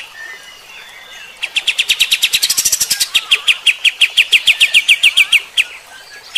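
Kapas tembak, a bulbul, singing. After a few softer notes it launches, about a second and a half in, into a fast run of short repeated notes, roughly seven a second, each dropping in pitch. The run lasts about four seconds, and another starts at the very end.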